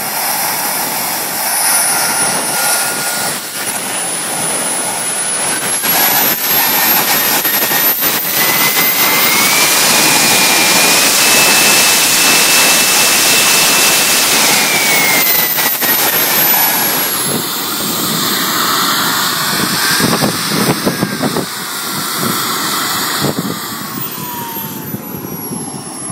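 Wren Super Sport model jet turbine running on the ground. Its whine climbs slowly in pitch as it is throttled up, holds high for a few seconds, then winds back down. A shorter, smaller rise and fall in pitch follows.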